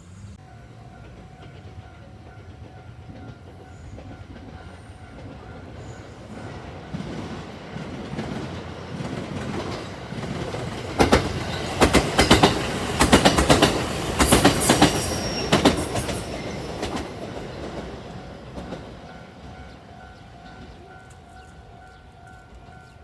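A train passes a level crossing. Its running noise builds, peaks in the middle with a quick run of wheel clicks over the rails, and fades away, while the crossing's warning bell rings steadily before and after the train.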